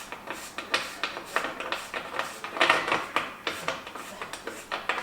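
Irregular run of light clicks and clatters, several a second, from parts and tools being handled during a bicycle build.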